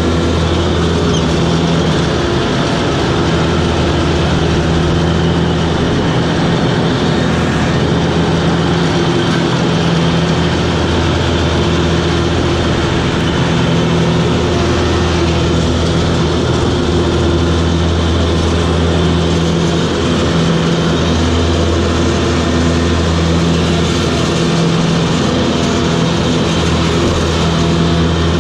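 Toro Groundsmaster 7210 zero-turn mower running steadily, heard from the operator's seat: a constant low engine drone under an even rushing noise, with the engine note dipping slightly now and then.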